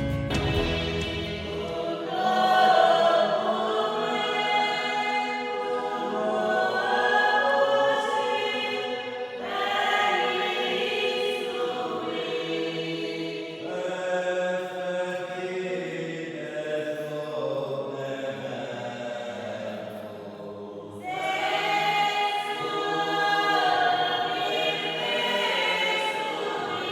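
A choir singing together in several voices, phrase after phrase, with short breaks about 9 and 21 seconds in.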